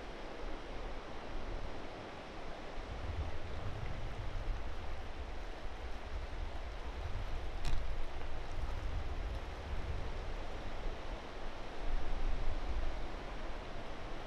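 Steady outdoor rushing noise with gusty wind rumbling on the microphone, and a single short click about eight seconds in.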